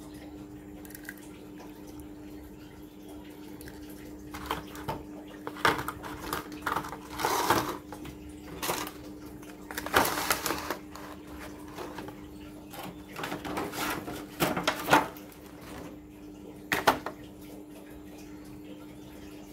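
Clear plastic blister trays and small diecast cars being handled and set down on a table: a run of plastic clicks, taps and crinkles, starting about four seconds in and ending a few seconds before the end, over a steady hum.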